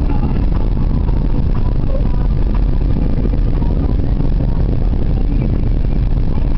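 Steady low rumble of a moving vehicle heard from inside its cabin: engine and road noise while driving.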